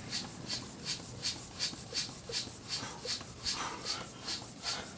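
Bicycle pump being worked fast to inflate a bike inner tube, each stroke a short hiss of air, about three strokes a second.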